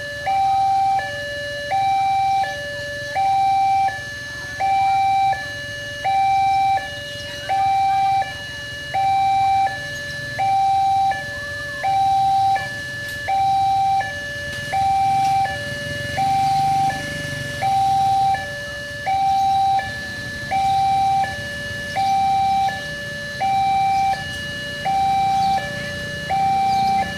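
Railway level-crossing warning alarm sounding: an electronic two-tone signal alternating steadily between a louder higher tone and a lower one, about one high-low cycle every second and a half.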